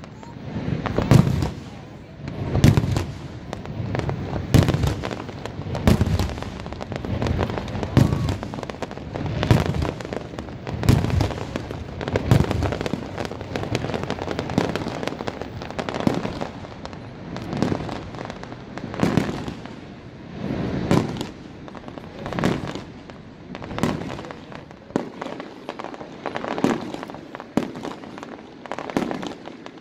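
Aerial fireworks shells bursting in a steady run of booms, about one every one and a half seconds, with smaller crackling pops between them.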